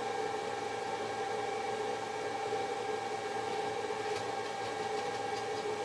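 Steady machine hum with a few fixed tones over a faint hiss, and a few faint ticks about four seconds in.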